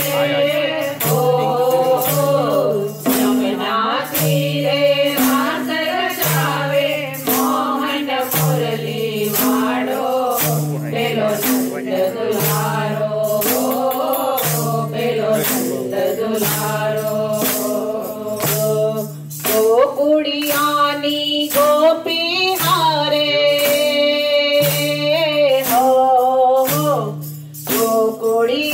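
Group of women singing a Gujarati devotional folk song (Krishna bhajan) in unison. Wooden kartal clappers clack on a steady beat, with a repeating low pitched accompaniment underneath.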